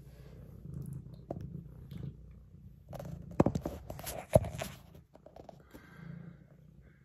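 Tabby cat purring steadily close to the microphone. About halfway through there is a burst of rustling with two sharp knocks.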